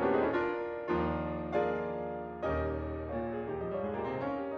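Solo piano music: slow chords struck every second or so, each left to ring and fade.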